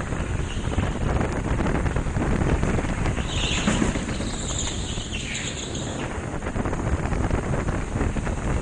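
Go-kart running at speed on an indoor track, heard from an onboard helmet camera as a steady rumble of engine and wind buffeting. Tyres squeal through a corner from about a third of the way in to past the middle.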